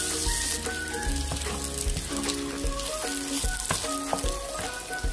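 Diced pork sizzling as it fries in its own rendered fat in a nonstick pan, being crisped after the cooking water has boiled off, with a wooden spatula stirring the pieces. Background music with a simple melody of short notes plays over it.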